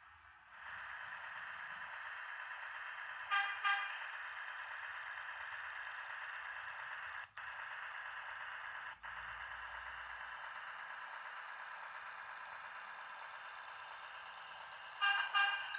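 Bachmann OO gauge class 03 diesel shunter with a DCC sound decoder, its small onboard speaker playing a steady, thin-sounding diesel engine sound with no bass. Two short horn toots come about three and a half seconds in, and another quick run of toots near the end.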